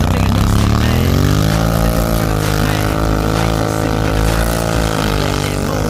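ATV engine revving up over about the first second and a half, then held at steady high revs as the quad ploughs through deep snow.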